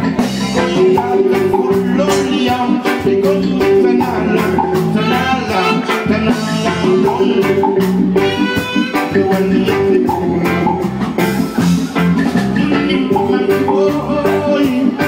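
Live amplified band music: a man singing over electric guitar and drum kit, with a steady beat.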